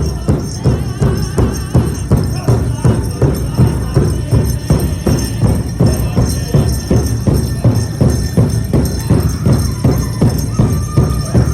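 Powwow drum beaten in a steady, even beat, about three strokes a second.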